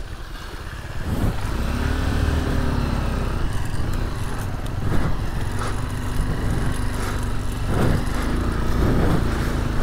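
Motorcycle engine running under load, its pitch swelling up and down with the throttle twice. There is a sharp knock about halfway through.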